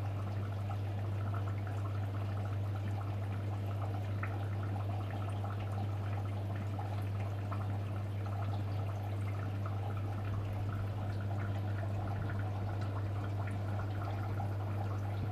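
Steady trickling and bubbling of aquarium water over a constant low hum.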